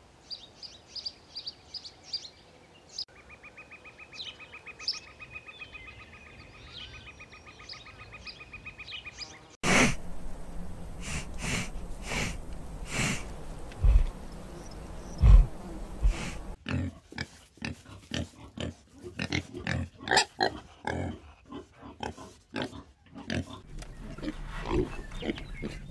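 Wild boar grunting and snuffling in short bursts, with two low thumps in the middle; later the grunts come from a litter of striped piglets. Before the boars, bird chirps and then a steady, rapidly pulsing buzz run for about the first ten seconds.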